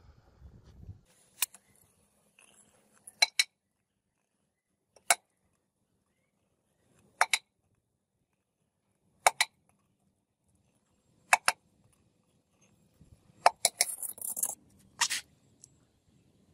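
Sharp metallic clinks of a steel tool striking a steel bowl of aluminium dross, single or in quick pairs about every two seconds. Near the end comes a denser cluster of clinks with a brief hiss.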